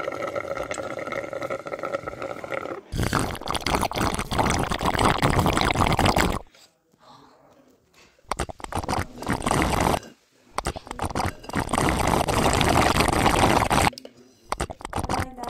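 A fizzy lemon soda being slurped through a straw from a lidded glass jar, close to the microphone: several long noisy stretches of sucking and gurgling, separated by short pauses.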